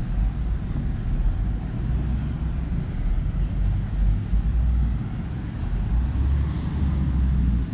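Low, uneven rumble of city street ambience with a faint hiss above it, no clear single event.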